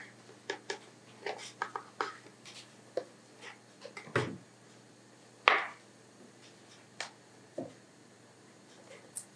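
Whole eggplants being threaded onto long flat metal kebab skewers: scattered taps, clicks and rustles as the skewers pierce the eggplants and knock against each other and the plastic bowl, the loudest tap about five and a half seconds in.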